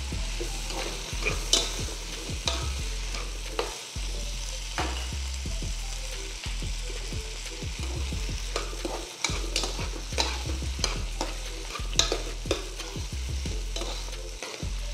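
Metal ladle stirring chopped vegetables (shallots, beans, carrot) sautéing in oil in a pot, with a steady sizzle and irregular clicks and scrapes of the ladle against the pot.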